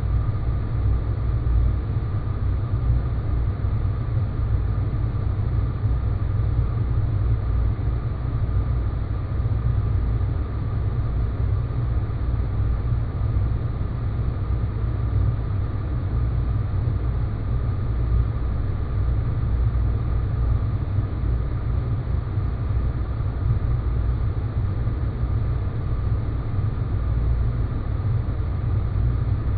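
Sci-fi space-planet ambience sound effect: a steady, low rumbling drone with a thin haze of noise above it and a faint steady tone high over it, unchanging throughout.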